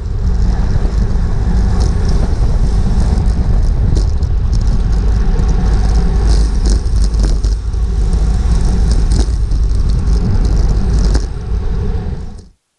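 Heavy wind buffeting on a bike-mounted action camera's microphone at race speed, with road and tyre rumble and scattered small clicks and knocks from the bike over the pavement. It eases off about eleven seconds in and cuts to silence just before the end.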